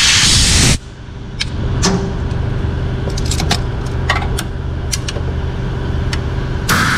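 Compressed air blasting out of an air comb wand as it blows debris from a tractor's A/C condenser and coolers, cutting off suddenly under a second in. A steady low hum follows, with scattered light clicks and taps, until the air blast starts again just before the end.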